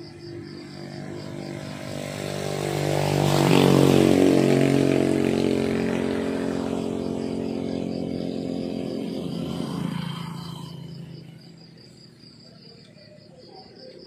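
A motor vehicle's engine passes by on the road, building to its loudest about four seconds in and fading away by about eleven seconds. Crickets keep up a steady, high, pulsing chirp throughout.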